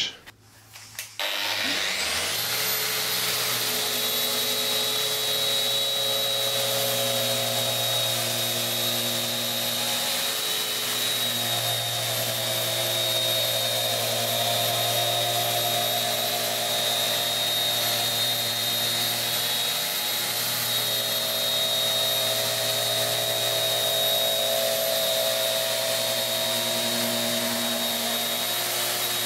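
Bosch GET 75-150 random orbital sander starting about two seconds in, spinning up with a rising whine. It then runs steadily, stripping old white paint from a pine board, with a steady high whine and a low hum under the sanding noise.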